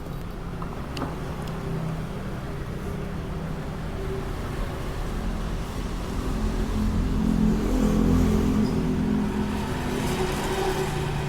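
Road traffic: a motor vehicle's engine running close by, a low hum that grows louder to a peak about eight seconds in and then eases off.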